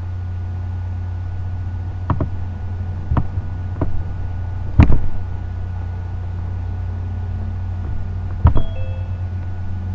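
Steady low hum picked up by a computer microphone, broken by five sharp clicks or knocks; the loudest comes about five seconds in.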